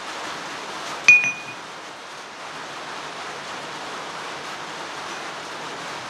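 A chunk of jackhammer-bit steel knocked against a steel anvil face: one sharp metallic clink about a second in that rings briefly at a high pitch, over a steady hiss.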